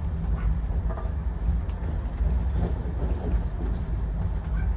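Steady low rumble of a moving train heard from inside a first-class AC coach of the Mumbai Rajdhani Express, with a few faint knocks from the running gear and coach.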